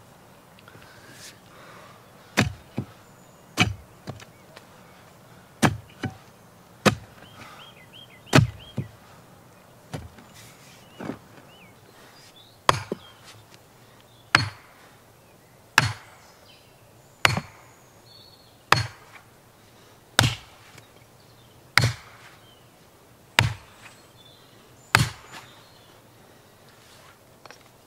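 A heavy hand tool striking again and again, about eighteen hard blows. The first few come unevenly, some in quick pairs, then they settle into a steady pace of about one every second and a half.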